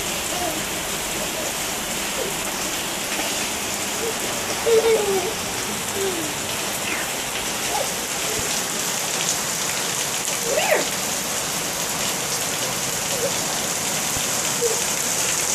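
Heavy rain pouring steadily onto a paved patio and driveway, an even hiss of splashing drops. A few short, high gliding voice sounds rise over it now and then, loudest about five and eleven seconds in.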